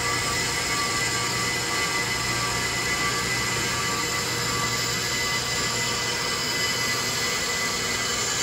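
Accuturn 8922 brake lathe machining a brake rotor on its automatic feed: the motor runs with a steady hum and whine while the two cutting bits shave metal off both faces of the spinning rotor, with an even hiss of cutting.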